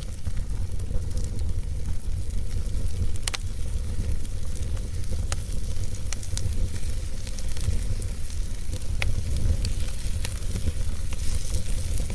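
Wood fire burning in a fireplace: a steady low rumble of flames with a soft hiss, broken by sharp crackles and pops scattered irregularly every second or two.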